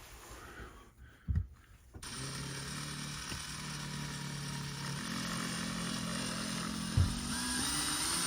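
Power drill running as it bores a 7/64-inch pilot hole into solid wood, starting about two seconds in after a single knock, and changing speed about halfway through; a sharp knock comes near the end.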